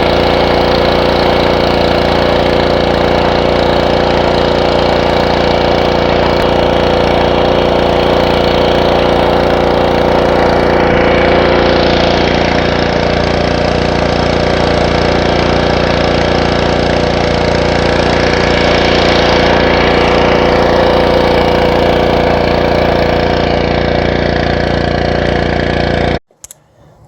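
Gas-engine pressure washer running steadily at constant speed, with a spray hiss that swells twice. The sound cuts off abruptly near the end.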